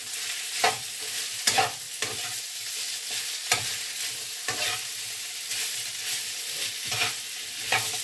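Sliced sausage frying in oil in a pan, a steady sizzle, with a utensil scraping and knocking against the pan every second or two as the pieces are stirred.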